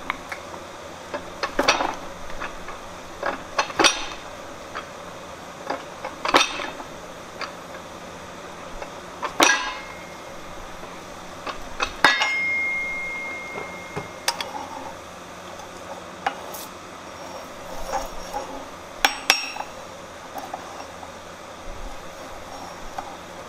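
Fly press forging hot steel: about eight sharp metallic clanks of the ram, tooling and tongs striking the workpiece and steel bolster plate, a few seconds apart. One clank about halfway through leaves a short ringing tone.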